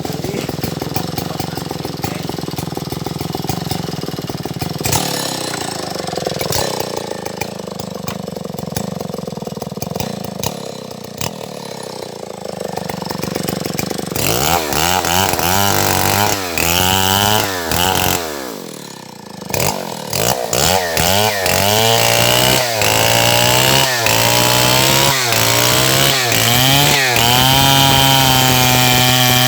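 Stihl MS070 chainsaw's two-stroke engine running hard, as in cutting wood, for about the first half. Then it is revved up and down again and again, dropping almost to idle once, and it settles at a steady high speed near the end.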